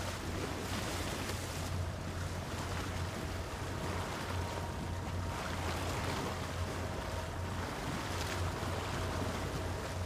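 Water rushing and splashing along the hull of a moving boat, steady throughout, over a continuous low rumble.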